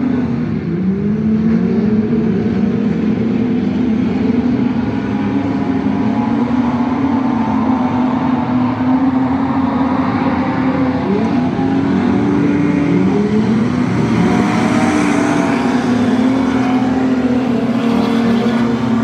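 A pack of standard saloon race cars lapping a dirt speedway oval. Several engines run at once, their notes rising and falling over and over as the cars accelerate and back off through the corners.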